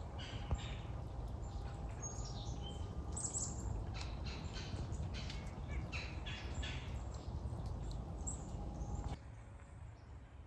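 Wild birds chirping faintly and intermittently over a low steady rumble of outdoor ambience; the sound cuts out abruptly about nine seconds in.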